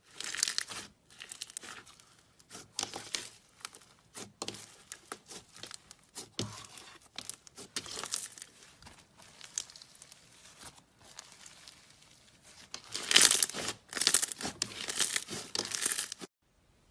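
Slime being squeezed and worked by hand, crackling and popping in irregular bursts, with a denser, louder run of crackles about thirteen seconds in before it stops abruptly.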